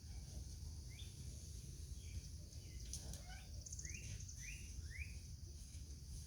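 Wild songbirds chirping in the morning: short rising notes, several in quick succession about four to five seconds in, over a steady low rumble and a high hiss.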